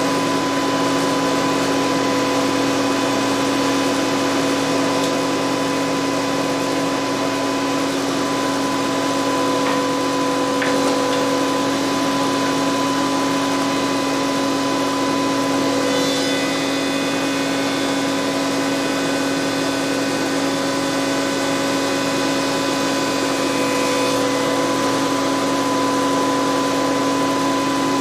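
Spindle shaper running steadily with a power feeder pushing a cabinet door panel edge past the cutter: a constant machine hum with a steady tone, with faint higher tones joining about halfway through.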